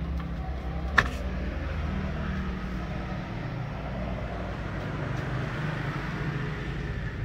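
Truck engine idling with a steady low hum, heard from the cab; a single sharp click about a second in.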